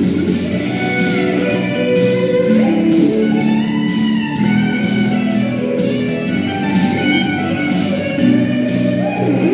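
Electric guitar playing a rock melody, sustained lead notes with string bends.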